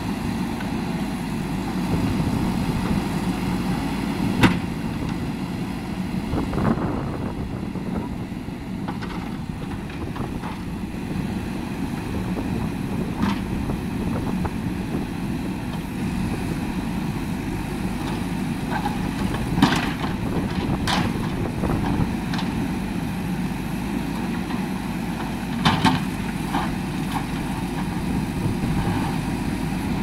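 JCB 3DX backhoe loader's diesel engine running steadily while the backhoe arm works, with several short sharp clanks as the steel bucket pushes and rolls a concrete culvert pipe.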